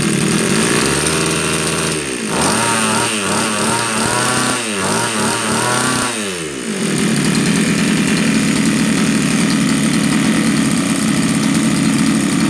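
26cc two-stroke brush-cutter engine with a 34 mm bore, running on test. It runs steadily, then its speed swings up and down several times between about two and six and a half seconds in, then settles back to a steady run.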